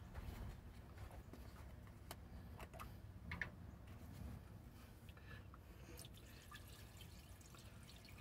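Faint handling of a plastic jug of water, with a few light ticks as its cap is taken off and water starts to pour into the radiator near the end.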